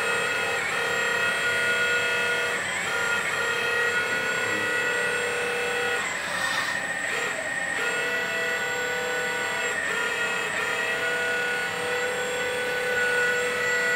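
Electric hydraulic pump of a LESU 1/14 metal RC wheeled excavator (Aoue ET30H) whining steadily under load, its pitch shifting at several points as the arm and tilting bucket are moved.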